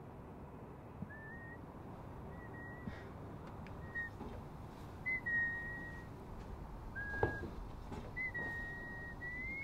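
A person whistling a tune in short phrases, some notes brief and a few held on one pitch, beginning about a second in.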